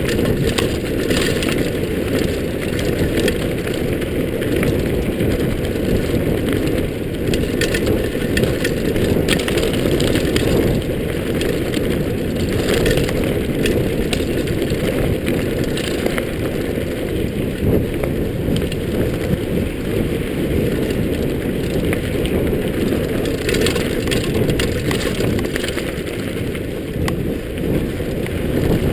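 Mountain bike rolling fast down a gravel track: a steady low rumble of wind buffeting the action camera's microphone, with the tyres crunching over loose stones and the bike rattling in a constant scatter of clicks.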